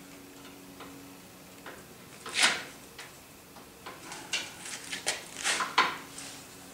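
Light metallic clicks and scrapes of hand work on a car's front brake: a brake hose being fitted to its bracket with a spring clip, and small tools being handled. One louder scrape comes about two and a half seconds in, then a quick run of smaller clicks.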